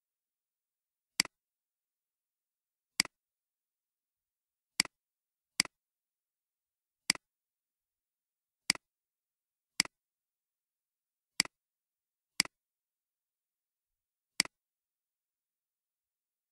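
Ten single computer mouse clicks, spaced irregularly about one to two seconds apart, with dead silence between them.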